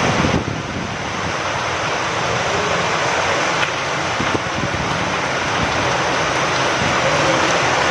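Steady rain falling with wind, an even hiss with two faint taps about three and a half and four seconds in.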